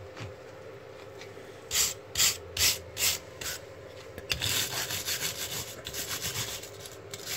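Hand wire brush scrubbing the end bracket of a Lucas ML704 dynamo held in a vise, cleaning it. A few separate scraping strokes come about two seconds in, then from about halfway fast steady back-and-forth brushing.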